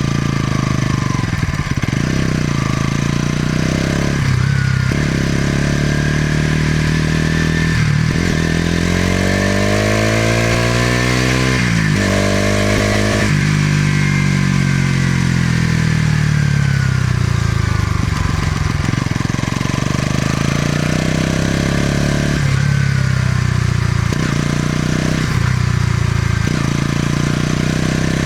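Bajaj Pulsar NS200's single-cylinder engine and exhaust while riding, the revs climbing and dropping with several gear changes. About twelve seconds in it revs up hard, then eases off in a long falling note before picking up again through more shifts.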